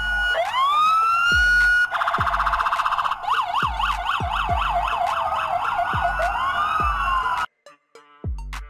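Police car siren: a rising wail that holds, then a moment of very fast warble, then a yelp sweeping up and down about three times a second that cuts off suddenly near the end. A kick-drum beat of background music thumps underneath.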